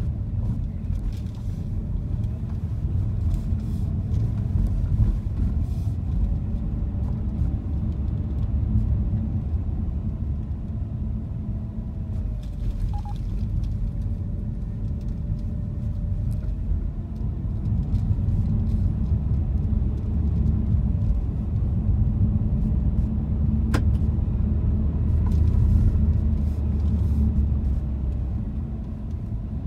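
Steady low rumble of a car's road and engine noise, heard from inside the moving car. A faint whine wavers slightly in pitch, and there is a single sharp click late on.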